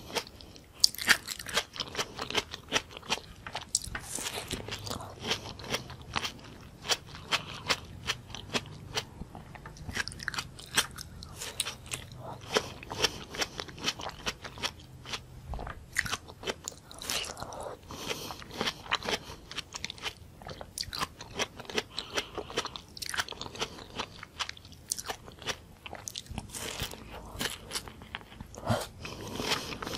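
A person biting and chewing raw tomato slices close to the microphone: a steady run of short, crunchy clicks.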